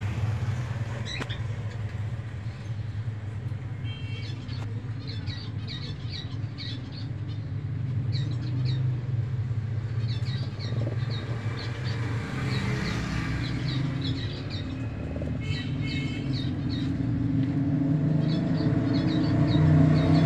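A steady low rumble that grows louder near the end, with small birds chirping in short quick runs of high chirps throughout.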